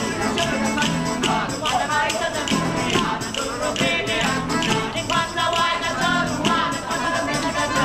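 Live acoustic street band of two acoustic guitars and an accordion playing a lively folk tune, with the guitars strumming a steady beat under the accordion's melody.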